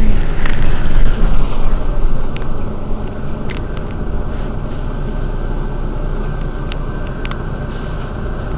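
Mercedes-Benz Citaro city bus engine idling while the bus stands at a stop. It is louder for the first second or two, then settles to a steady idle, with a few faint clicks.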